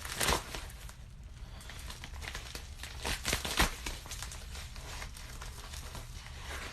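A mailed package's wrapping crinkling and tearing as it is pulled open by hand, with louder rips at the start and about three seconds in.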